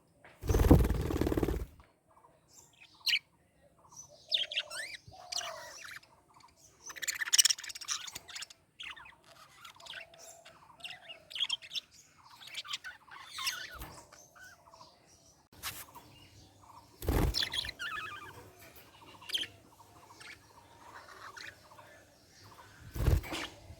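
Budgerigars chirping and warbling, many short varied chirps overlapping. Three loud brief bursts of noise break in: about a second in, a little past the middle, and near the end.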